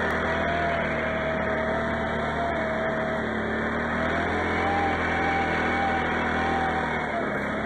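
Can-Am XMR 650 ATV's V-twin engine running steadily under way through snow, its pitch rising and falling gently with the throttle and easing slightly near the end.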